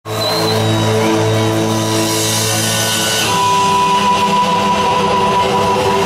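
Live rock band playing in an arena, heard from among the crowd: held chords that change to a new chord about three seconds in.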